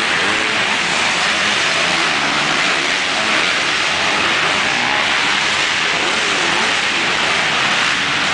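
Several motocross dirt bike engines revving on an indoor track, their pitch rising and falling as a steady, dense din that fills the arena building.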